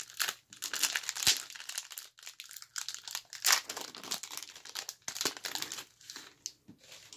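Foil wrapper of a 1990-91 Skybox basketball card pack crinkling and tearing as it is pulled open by hand, a run of irregular crackles.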